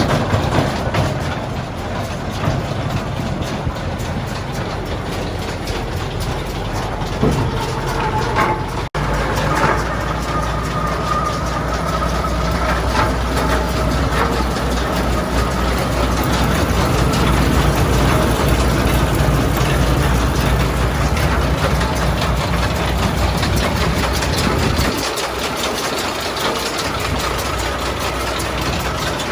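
Engine running with a New Holland hay baler, a steady mechanical din. About nine seconds in it cuts out for an instant, then comes back with a heavier low rumble that falls away about 25 seconds in.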